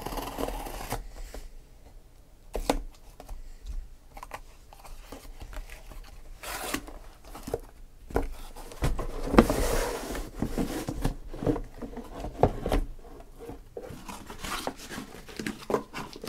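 A sealed cardboard shipping case being opened by hand. A blade slits the packing tape at the start, then cardboard rubs, scrapes and knocks as the flaps are opened and the boxes are pulled out and stacked. The cardboard noise is loudest about nine to ten seconds in.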